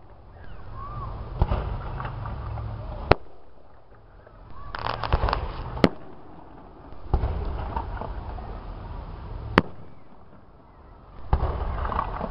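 Aerial fireworks shells bursting overhead: a series of sharp bangs, each followed by a rolling rumble that fades, with a burst of crackling about five seconds in.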